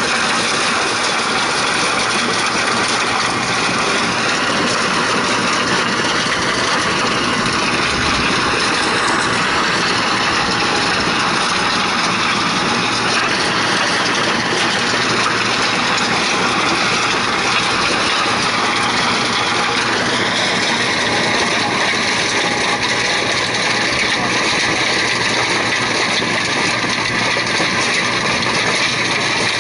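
Tractor-mounted stone crusher at work, its rotor driven by the tractor's power take-off and grinding stones into the soil while the tractor engine runs under load: a loud, steady mechanical noise. A steady high tone joins about two-thirds of the way through.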